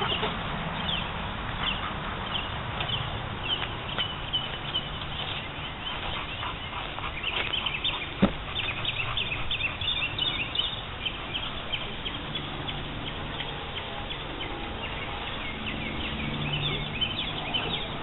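Birds chirping and calling, many short high calls one after another, with one sharp click about eight seconds in.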